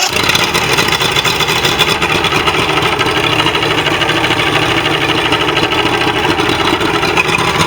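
Mercury XR6 150 V6 two-stroke outboard running steadily at idle. It now runs after its no-start was cured by cleaning out the fuel system and fitting new spark plugs.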